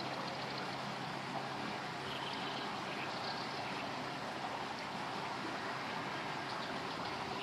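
River water flowing, a steady, even rush of water noise.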